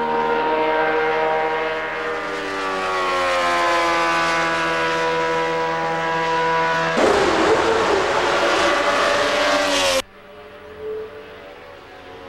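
Honda RA272's 1.5-litre V12 racing engine at high revs, its note falling slowly in pitch as the car runs past. About seven seconds in, a louder, rasping burst comes as it passes close. This is cut off abruptly about ten seconds in, leaving a much fainter engine note.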